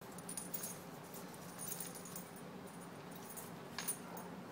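A puppy's collar tags jingling in short, light bursts as it wrestles and shakes a plush toy, with a sharper jingle near the end.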